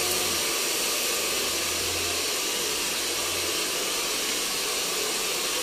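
Steady rushing hiss of a hair dryer blowing, with a faint low hum underneath that fades out about three and a half seconds in.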